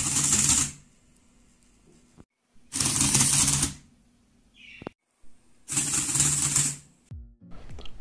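LEGO Rubik's Cube solving robot turning the cube's faces in three fast clattering bursts of about a second each, each burst one complete solve, with its motors humming under the clatter.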